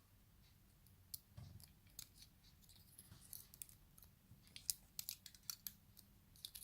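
Light, sharp clicks and ticks of small metal parts being handled as the springs and pins are taken out of a pin-tumbler lock. The clicks are sparse at first and come thick and fast in the last two seconds.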